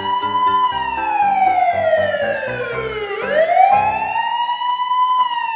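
Wailing siren sound effect: the pitch falls slowly, rises again about three seconds in, holds and starts to fall near the end. Light background music plays underneath until about four seconds in.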